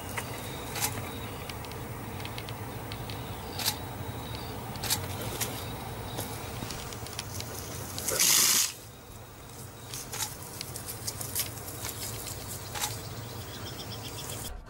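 Field sound of a leopard and a porcupine in a standoff on dry, stony ground: scattered light clicks and rustles over a steady low hum, with one loud, brief rushing noise about eight seconds in.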